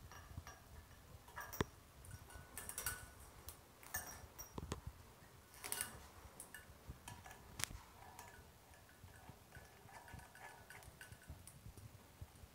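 Faint, scattered clicks and light knocks of metal being handled: a chrome shower mixer and its flexible metal shower hose. The few louder knocks are spread irregularly.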